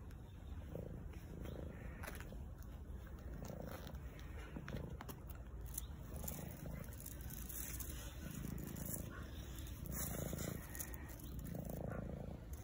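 Black cat purring while being stroked, the purr swelling and easing in a loose rhythm about once a second or so.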